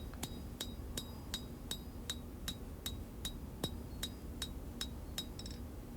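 Forging hammer striking hot blade steel on an anvil at a steady pace, about two and a half blows a second, each with a short bright ring: the edge bevels of a Bowie blade being hammered in.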